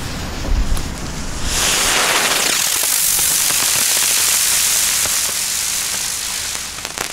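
Two Explode Crackling Bird flying spinners lifting off: about a second and a half in, a loud, steady rushing hiss starts as they climb, easing slightly near the end, when a rapid crackle begins. A low buffeting thump of wind on the microphone comes before the hiss.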